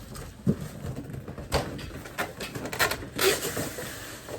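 Cardboard boxes and packaging being handled: scattered rustles and knocks, with louder crinkling about a second and a half in and again around three seconds in.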